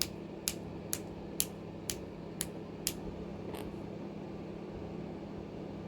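A room heater humming steadily. Over it come sharp, evenly spaced ticks, about two a second, which stop about three and a half seconds in.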